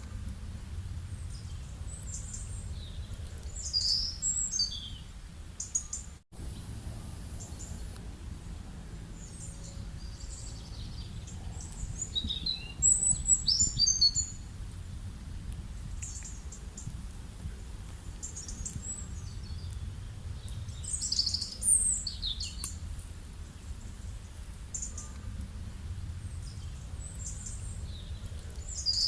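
Songbirds chirping in short high-pitched bursts, loudest about four, thirteen and twenty-one seconds in, over a steady low rumble of rural background ambience.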